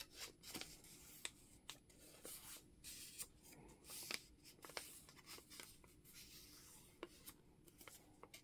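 Faint rustling and crinkling of a strip of book-page paper being folded in half and creased by hand, with scattered small ticks.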